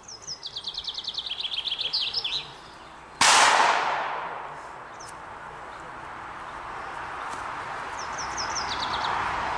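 A songbird sings a fast run of high chirps that steps down in pitch. About three seconds in, a single loud bang goes off and its tail fades over a second and a half. The bird sings a shorter phrase near the end, over a rising background hiss.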